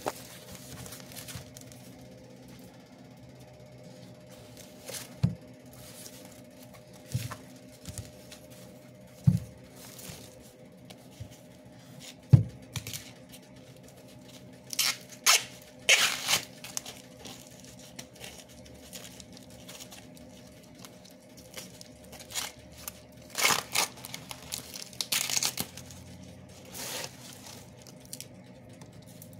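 Green husks being peeled off ears of fresh corn by hand, tearing and crinkling in short rasping rips that come in two clusters. A few dull knocks from handling the cobs come earlier, and a faint steady hum runs underneath.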